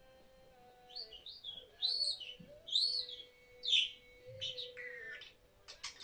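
Pet budgerigar chirping and warbling in a string of short, arching chirps, ending in a quick run of clicky chirps.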